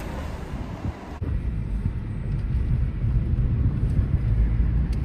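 Road noise inside a moving car: a steady low rumble of tyres and engine, which turns abruptly louder and deeper about a second in.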